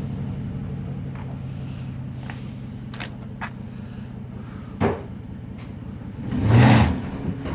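Stock Chrysler 300C 5.7 HEMI V8 idling steadily through its factory exhaust. There are a few sharp clicks and a thump midway, then a brief loud burst of sound near the end.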